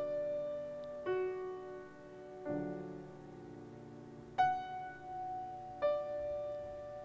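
Solo grand piano playing slow, sustained chords. A new chord is struck every one to two seconds and left to ring and fade.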